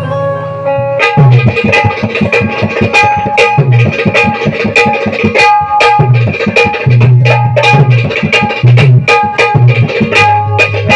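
Instrumental interlude of Konkan shakti-tura folk music. A held chord sounds for about the first second, then a fast hand-drum rhythm starts and a plucked-string melody plays over it.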